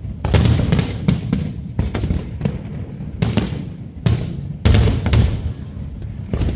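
Aerial fireworks shells bursting: well over a dozen sharp bangs at irregular intervals, some in quick pairs, over a continuous low rumble.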